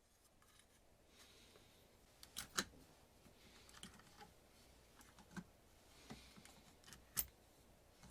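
Scattered small clicks and light taps, with faint rustling between them, over near silence; a sharp click comes twice about two and a half seconds in, then once each at about five and a half and seven seconds.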